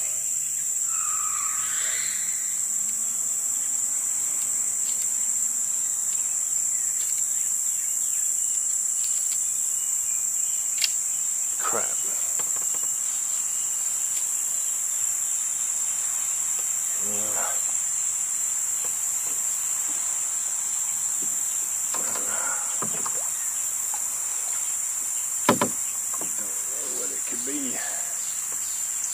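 Cicadas singing in a steady, continuous high-pitched drone. A sharp knock comes about eleven seconds in, and a louder double knock comes near the end.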